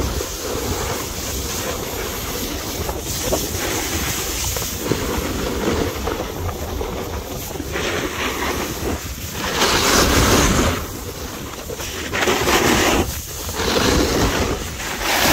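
Wind buffeting the microphone and a snowboard's edges scraping over groomed snow during a downhill run, with louder surges of scraping as it carves turns, the biggest about ten seconds in.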